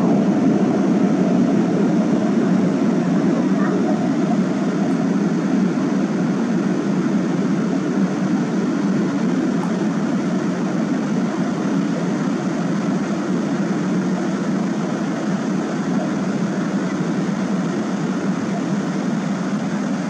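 Fast river water pouring steadily over a concrete step, a constant even rush of white water.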